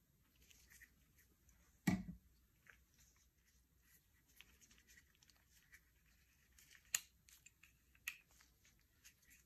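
Gloved hands handling a plastic-bodied Slice folding utility knife while opening it out, with faint rustling and small clicks. A single dull thump comes about two seconds in, and sharp clicks of the handle come about seven and eight seconds in.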